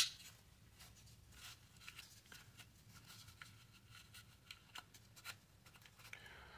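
Paper napkin wiping the inside of a Glock pistol's polymer frame: faint, scratchy rubbing with scattered small ticks from the metal rails and trigger parts. A single sharp click at the very start.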